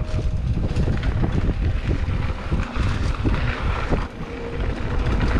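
Wind rumbling on the microphone over the rattle and crunch of a mountain bike rolling along a dirt singletrack, with many small irregular clicks and knocks from the bike and trail.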